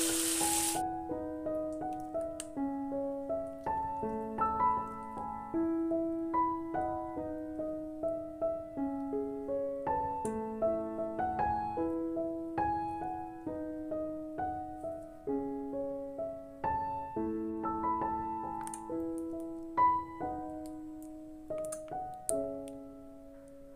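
Soft background piano music: a gentle melody over repeated lower notes. The hiss of food frying in oil cuts off in the first second.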